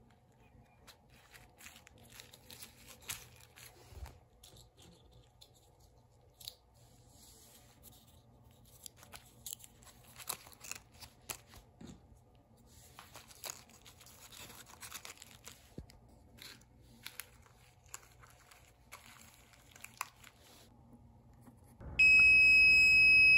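Bubble wrap and tape crinkling and rustling in scattered bursts as the meter is handled. Near the end, the Thermo Scientific RadEye G20-10 gamma survey meter gives one loud, steady, high beep as it powers up.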